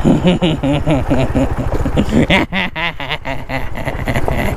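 A man singing to himself over a motorcycle engine that runs underneath as a steady low pulsing. A quick run of knocks about two and a half seconds in.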